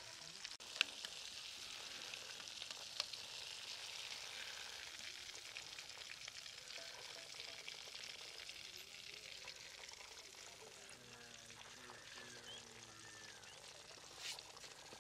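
Whole chicken frying in oil in a metal kadai: a steady sizzle, with a few sharp clicks.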